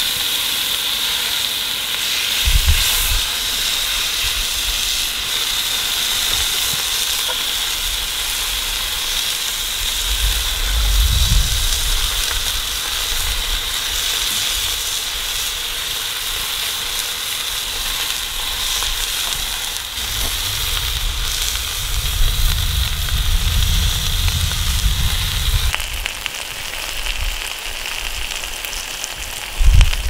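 Steaks frying in butter in a cast iron skillet over a wood fire, a steady sizzle throughout. Low rumbles come and go a few times.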